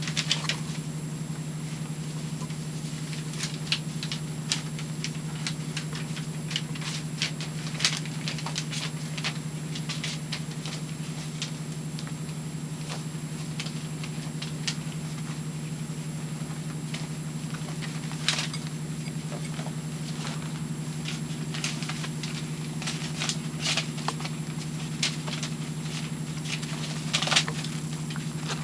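Puppies' paws and claws pattering, scratching and clicking on paper pads and the pen floor in irregular, scattered bursts, over a steady low hum.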